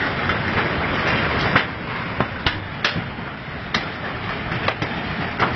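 A continuous rumbling noise with about a dozen sharp knocks and clatters scattered through it.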